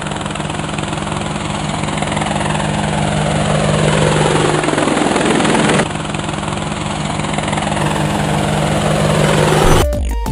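Quadcopter drone propellers whirring with a steady hum, with a falling sweep in pitch around the middle and an abrupt change about six seconds in. Electronic music starts just before the end.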